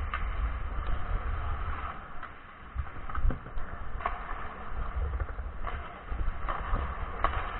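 Ice hockey skates striding and scraping on the ice, heard from a camera worn by a skating player, over a steady low rumble of movement on the microphone. Several sharp knocks are scattered through it, the loudest a little over three seconds in.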